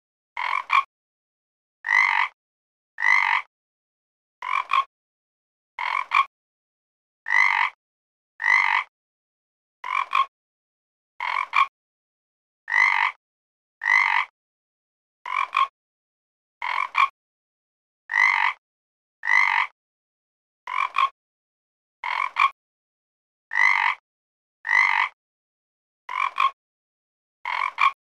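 A frog croaking over and over: short, rasping croaks about every second and a half, with dead silence between them.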